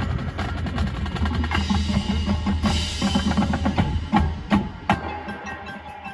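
High school marching band playing, sustained chords over a heavy drumline pulse, with three sharp accented hits about four to five seconds in before the music drops to a quieter passage.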